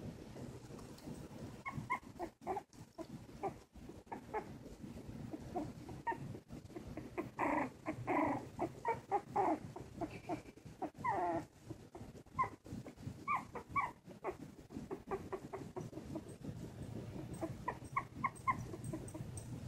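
Whimpering and squeaking of 2½-week-old silky terrier puppies: a string of short, high squeaks, busiest and loudest in the middle, where a few longer whines slide in pitch.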